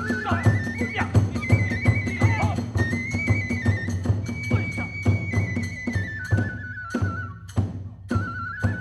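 Kagura hayashi accompaniment: a high transverse bamboo flute plays a held, stepping melody over steady, regular drum beats and clashing hand cymbals.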